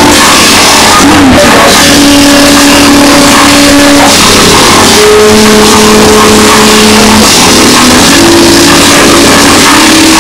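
Very loud, heavily distorted electronic noise, a dense roar with a few held notes over it that step to new pitches every second or two.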